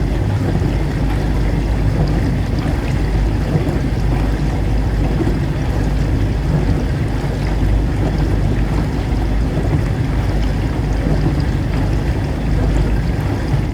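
Dishwasher running: a steady low hum with the rush of water spraying and sloshing inside the tub.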